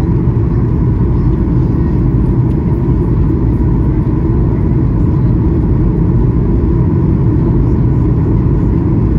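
Steady in-flight cabin noise of a Boeing 737-800: a constant low rumble of its CFM56 engines and the airflow over the fuselage, with a faint steady whine.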